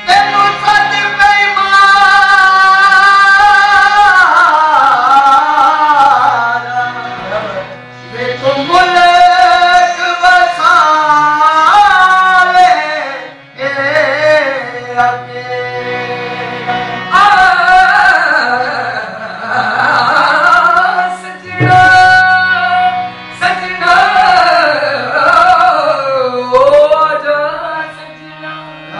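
Qawwali singing: a man's voice in long, ornamented melodic lines over the held notes of a harmonium, with tabla accompaniment.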